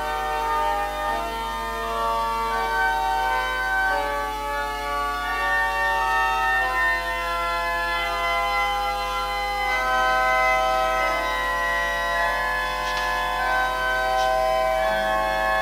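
Organ music: slow, sustained chords with a melody line, each note held for a second or more before the harmony moves on.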